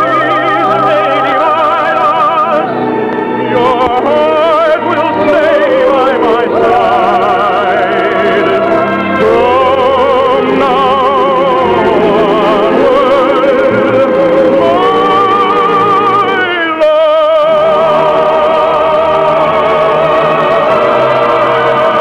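Operatic singing with a wide vibrato over an orchestra, closing on a long held note near the end.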